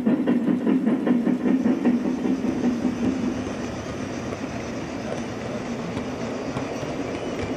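Gauge 1 model train rolling along the track: a rapid rhythmic clatter of metal wheels for the first couple of seconds, then a steady rolling rumble.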